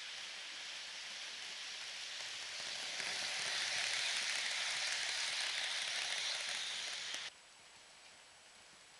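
Roco model train rolling past close by, the hissing clatter of its wheels on the track swelling as it comes nearest. About seven seconds in there is a click and the sound cuts off at once as the recording changes to another view, leaving a faint hiss.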